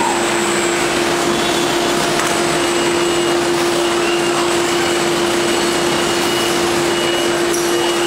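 Steady running noise of factory machinery on a bottling and palletizing line: a constant hum under an even hiss that does not change as the robot arm moves.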